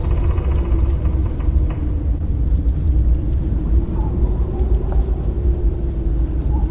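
Haunted-house sound-effect ambience: a deep, steady rumble with a low, slightly wavering drone over it and a few faint scattered clicks.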